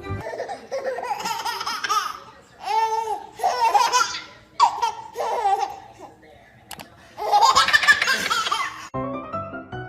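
A baby laughing in repeated high-pitched bursts and squeals, with a short pause about two-thirds of the way through. Music starts near the end.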